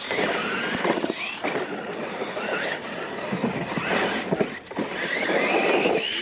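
Losi LMT radio-controlled monster trucks racing on dirt. Their electric motors whine, rising and falling in pitch with the throttle, over the scrabble of tyres on loose dirt, with knocks as the trucks land off the jumps.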